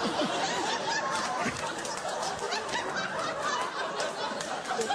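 Live studio audience laughing, many voices chuckling and laughing together.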